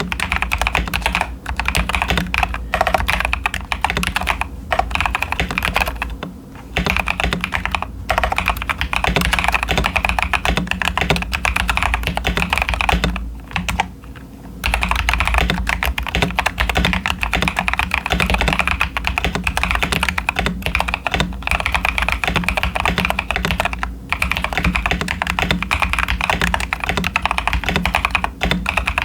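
Fast, continuous typing on a mechanical keyboard fitted with Ashkeebs Auralite linear switches and Cherry-profile dye-sub PBT keycaps, in a CIY Tester 68 case dampened with tape on the PCB and towel foam. The rapid keystrokes break off briefly about six seconds in and again for a second or so around the middle.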